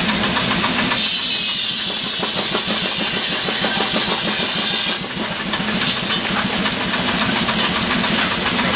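Sawmill machinery running steadily, with a loud high rushing hiss from about a second in until about five seconds in.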